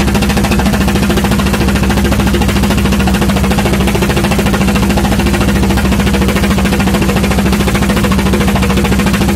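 Small fishing boat's engine running steadily under way, loud and even with a fast, regular pulse.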